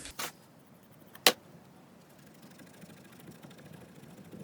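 A small spring on a Rock-Ola jukebox write-in/read-out mechanism popping loose: one sharp metallic click about a second in, after a fainter click at the start.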